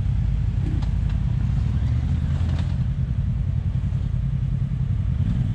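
Polaris RZR Turbo side-by-side's turbocharged twin-cylinder engine running steadily at low revs while crawling over rocks, with a few faint clicks in the first half.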